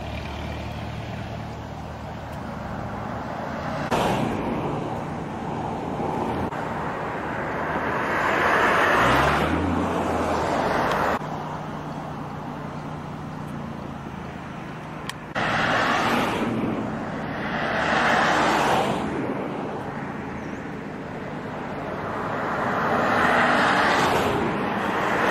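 Road traffic: several cars pass along the highway one after another, each a swelling and fading rush of tyre and engine noise over a steady background hum, with a few abrupt jumps in level.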